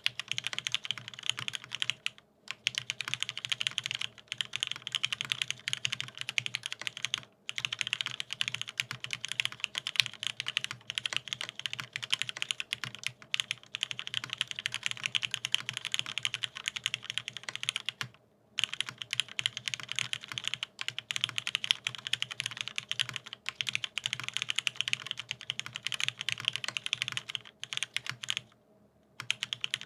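Fast continuous typing on a mechanical keyboard with lubed vintage Cherry MX Black linear switches on an aluminium plate and Cherry dye-sub keycaps: a dense run of key clacks, broken by brief pauses about 2, 7, 18 and 28 seconds in.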